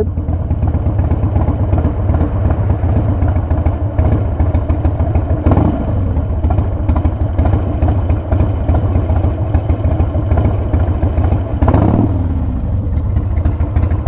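Harley-Davidson CVO Wide Glide's V-twin engine running steadily at low revs with the choke pushed partly in, testing whether it will hold without stalling. The engine swells briefly twice, about five seconds in and near the end.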